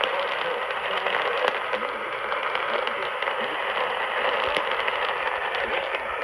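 Steady radio static from a weather-alert radio broadcast on a weak signal, with a faint voice barely audible beneath the hiss.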